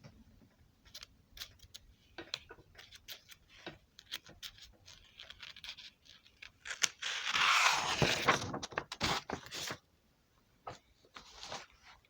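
Scattered clicks and short scrapes of handling noise, with a louder rustling scrape from about seven to eight and a half seconds in.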